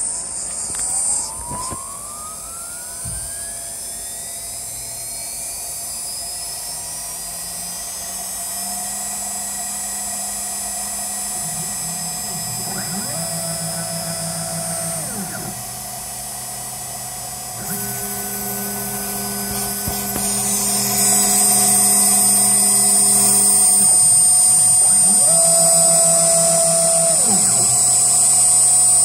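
Desktop CNC router at work on a PCB: the spindle winds up with a rising whine near the start and then runs at a steady high pitch, while the stepper motors hum at set pitches that ramp up and down as the axes start and stop. It grows louder about two-thirds of the way through.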